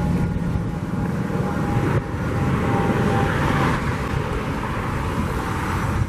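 A vehicle passing, its noise swelling and fading about three to four seconds in, over steady wind buffeting the microphone.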